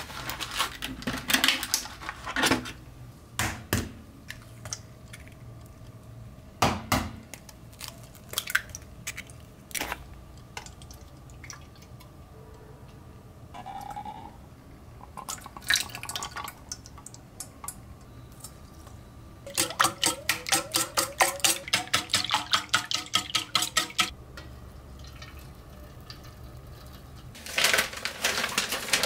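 Kitchen prep sounds: a plastic egg carton clicking open, eggs knocked on a stainless steel bowl, a short pour of milk, then the egg and milk mixture beaten briskly against the bowl in about four seconds of rapid ringing strokes. A bag rustles near the end.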